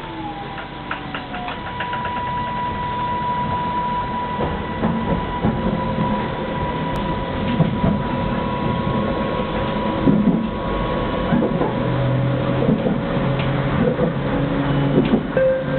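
ABB Variobahn low-floor tram heard from inside, running and gathering speed. The traction drive whines in steady tones that drop to a new pitch in steps, over a rising rumble of wheels on rail with scattered clicks.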